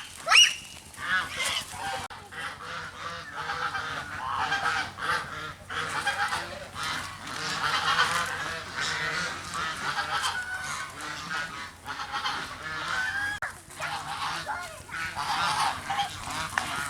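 A flock of geese honking, with many calls overlapping almost without a break and one louder honk right at the start.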